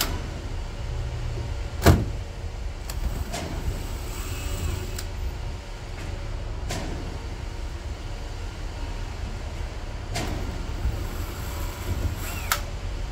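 Cordless drill driving screws into bumper fittings in short runs, among clicks and knocks of parts being handled. A sharp knock about two seconds in is the loudest sound.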